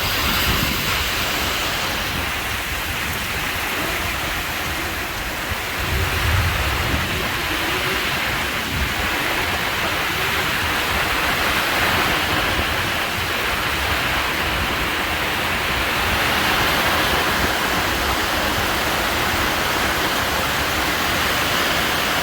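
Strong tropical storm: a steady rush of heavy rain and wind, with a louder low rumble about six seconds in.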